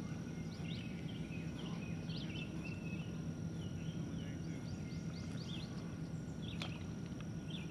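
Several songbirds chirping, short quick calls overlapping and repeating, over a low steady rumble. A single sharp click sounds about two-thirds of the way through.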